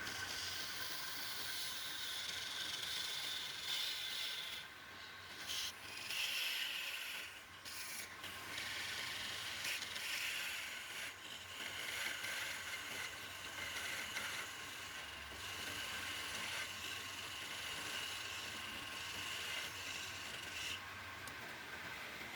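Woodturning lathe running with a scraping hiss of wood being worked on the spinning piece, over a faint steady whine. The scraping breaks off briefly a few times in the first third and eases near the end.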